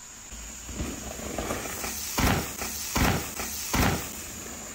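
Mountain bike riding down a rocky trail: three heavy thuds, about a second apart, as the wheels land on rocks and drops.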